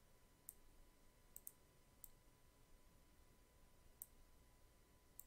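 Faint computer mouse button clicks, about six at irregular intervals, two in quick succession about a second and a half in, as pins are placed and dragged on a Puppet Warp mesh.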